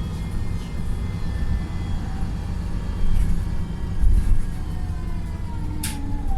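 Wright Pulsar single-deck bus engine heard from inside the saloon while under way: a steady low diesel rumble, which the uploader calls a tired engine with thrash. A whine falls in pitch near the end as the bus slows, and a short, sharp hiss of air about six seconds in is the air system's 'sneeze'.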